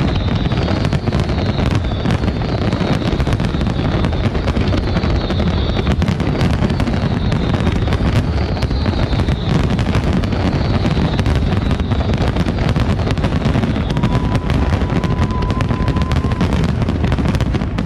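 Fireworks display finale: a dense, continuous barrage of aerial shells bursting and crackling without pause. A steady whistle tone is held for about two seconds near the end.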